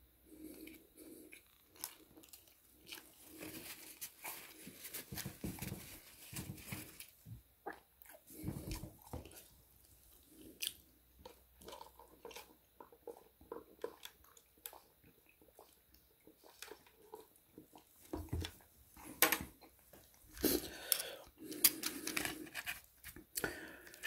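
A person chewing and crunching mouthfuls of crispy fried chicken, with irregular soft mouth sounds. Near the end come louder, sharper clicks as a knife and fork cut the chicken.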